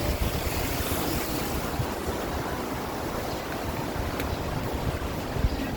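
Wind buffeting the microphone: a steady rushing noise with uneven low rumbles, and a faint click about four seconds in.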